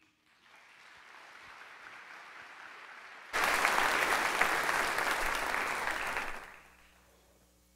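A congregation applauding. The applause is faint at first, turns suddenly much louder a little over three seconds in, and dies away about three seconds later.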